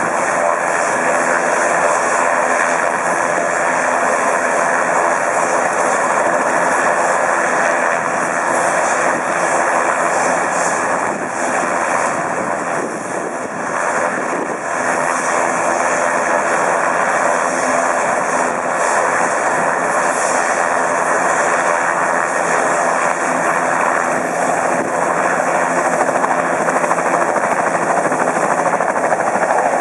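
Bell 206 JetRanger helicopter running on the ground, its turbine and main and tail rotors turning in a steady, loud noise that dips briefly about halfway through.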